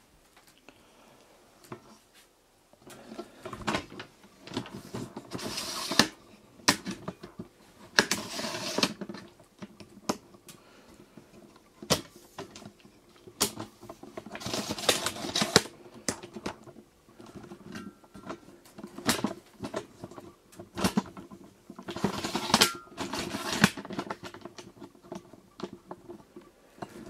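Handling noise as a hand-held camera is moved about: irregular clicks, knocks and bursts of rustling, over a faint steady hum.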